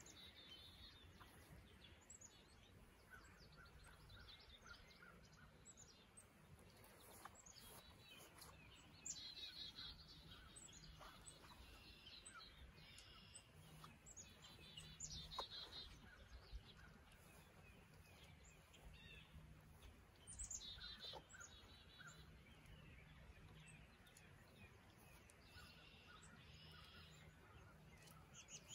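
Faint birds chirping: repeated short trilled calls, the clearest about a third of the way in, around the middle and about two-thirds through, over quiet outdoor background.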